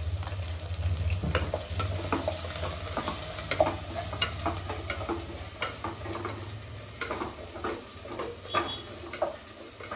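Wooden spatula stirring onion, tomato and green chilli masala in a pot over a gas flame, with irregular scrapes and knocks against the pot and a light sizzle of frying. A low hum underneath fades out about seven seconds in.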